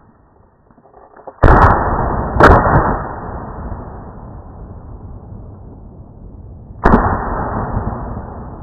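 Three shotgun shots: two about a second apart, then a third some four seconds later, each followed by a long echoing tail.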